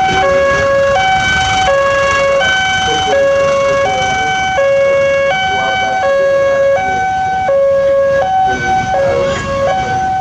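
Railway level crossing warning alarm sounding a loud two-tone electronic signal, a lower and a higher tone alternating about every 0.7 s without pause, warning of an approaching train, over the low rumble of waiting traffic.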